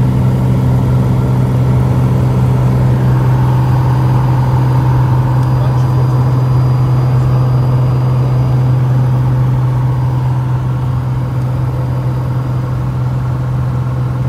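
SOCATA TB20's six-cylinder Lycoming IO-540 engine and propeller in cruise flight, a steady loud drone with a strong low tone, heard from inside the cockpit. It gets a little quieter about ten seconds in.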